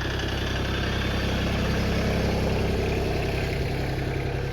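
Tractor engine running steadily, growing a little louder in the middle and easing off again.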